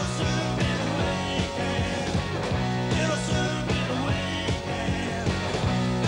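Live rock band playing: electric guitar, bass and drums keeping a steady beat, with a male singer at the microphone.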